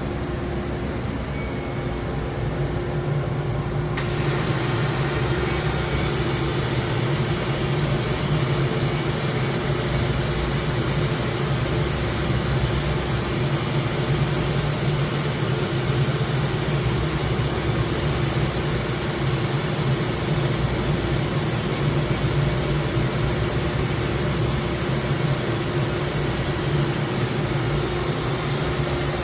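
DMG Mori NHX4000 CNC horizontal machining center running under power with a steady hum and a low fixed tone. About four seconds in, a loud steady hiss starts suddenly and continues.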